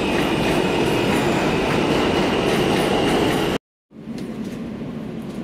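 Subway train in the station, a loud steady rumble with a high, steady wheel squeal. It cuts off abruptly about three and a half seconds in, and a quieter steady rumble follows.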